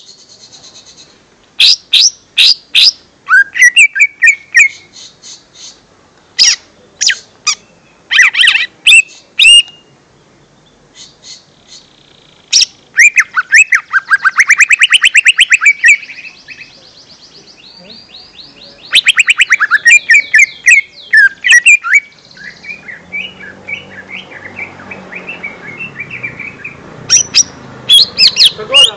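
Lesser green leafbird (cucak ijo mini) calling: loud, sharp whistled chirps and short phrases, broken by fast rattling trills about halfway through and again a few seconds later, then quieter continuous chattering near the end. A lure call of the kind used to set young birds singing.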